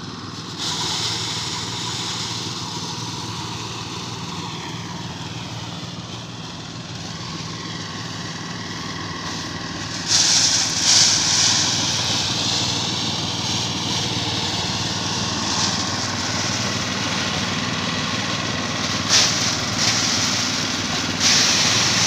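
Small engine-driven rice thresher running steadily, with louder rushes of threshing noise as bundles of rice stalks are fed into it, about ten seconds in and again near the end.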